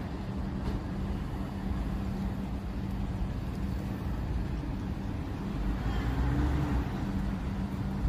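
Steady low rumble of a motor vehicle engine running nearby, with a constant low hum, swelling slightly about six seconds in.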